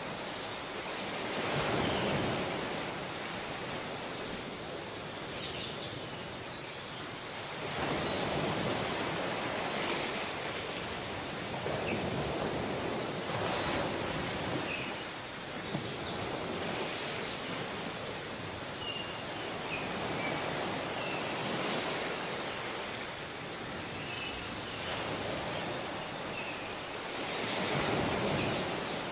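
Ocean waves washing in, the rush of water swelling and falling back every few seconds, with faint high chirps now and then.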